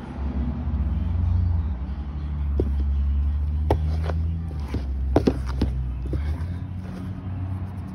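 A hand digging through fermented-sawdust beetle-rearing substrate in a plastic tub, with a series of sharp knocks and clicks from the plastic container in the middle seconds. A low steady rumble runs underneath and stops about six seconds in.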